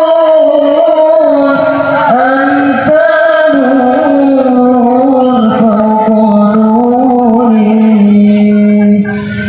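A man chanting in long, held notes with ornamented bends in pitch, loud and continuous; the phrase breaks off briefly shortly before the end.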